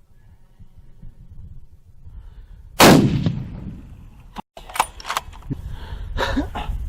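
A single hunting rifle shot about three seconds in, sudden and loud, with a rumbling echo that fades over about a second. A few shorter sharp clicks and knocks follow.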